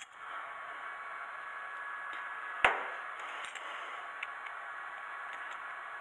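Brake caliper parts being handled by hand, with one sharp knock about two and a half seconds in and a few faint clicks over a steady hiss.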